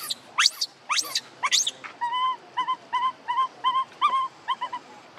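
Baby macaque crying: four shrill screams that sweep sharply upward, about two a second, then from about two seconds in a run of short, even whimpering calls, about three a second, that stop shortly before the end.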